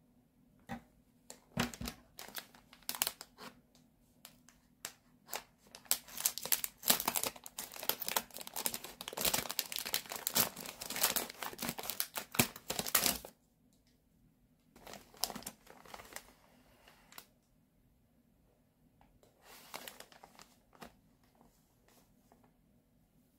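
Clear plastic wrapper on a pack of cotton pads crinkling as it is handled and cut open with scissors: scattered crackles, then several seconds of dense crinkling that cuts off suddenly about two-thirds of the way through. Two shorter rustles follow as the pack is opened.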